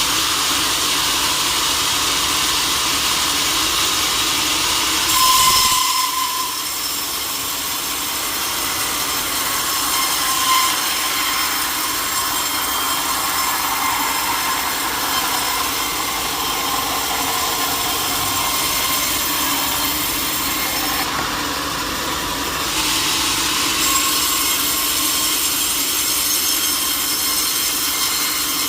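Sawmill saw cutting through a teak log, a steady grinding hiss. The hiss eases about six seconds in and comes back strongly near the end.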